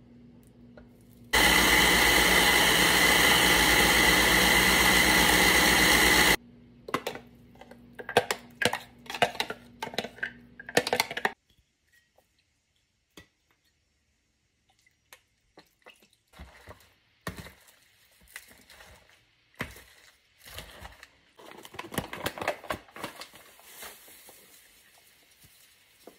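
Small electric food processor running for about five seconds, chopping vegetable chunks with chili flakes into a kimchi paste. A run of knocks and clicks follows. Later come scattered scrapes and clatters as julienned vegetables are mixed with a spoon in a plastic bowl.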